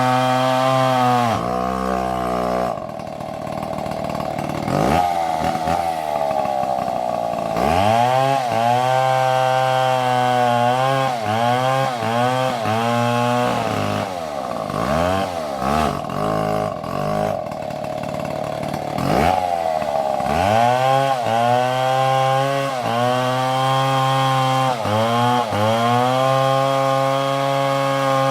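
Large two-stroke chainsaw at high revs cutting into wood. Its pitch sags and climbs back again and again as the chain loads up in the cut, wavers up and down around the middle, then holds high and steady.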